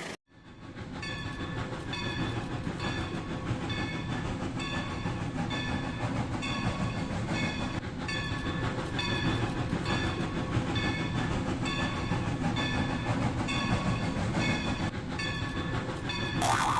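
Rail King battery toy train running on its track: a steady low motor-and-wheel rumble under a quick, even run of short high tones. A brief louder burst comes near the end.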